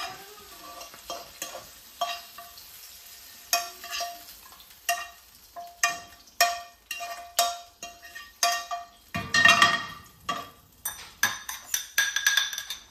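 A utensil scraping and tapping against a frying pan, about once a second, each stroke leaving the pan ringing briefly, as cooked spinach is scraped out into a small bowl. A longer, heavier scrape comes about two-thirds of the way in.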